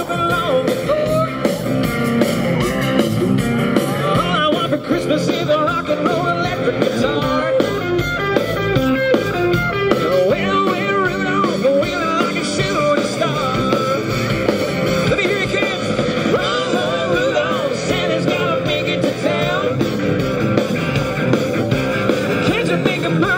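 Rock music with singing and guitar, playing without a break.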